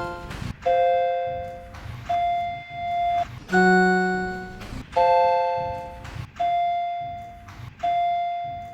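Vertechs elevator chime, run through added sound effects, dinging again and again: six strikes about a second and a half apart, each fading away. From one ding to the next the pitch and the number of notes change; some are a single tone and some are two or three tones together.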